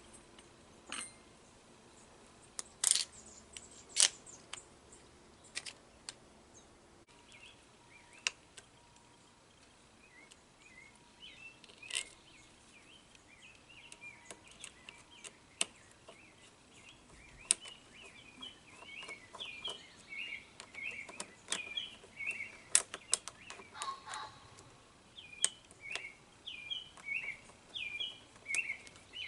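Sharp metal clicks and taps of small screws and parts being handled while a carburetor is put back together. Birds chirp in the background from about a third of the way in, growing busier toward the end.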